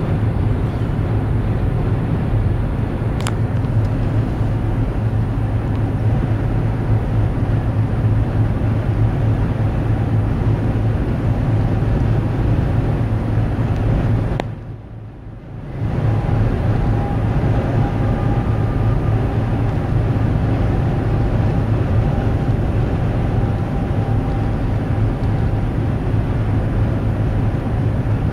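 Steady low rumble of motor vehicles, with a single sharp click a few seconds in. The sound drops away suddenly for about a second and a half around the middle, then comes back.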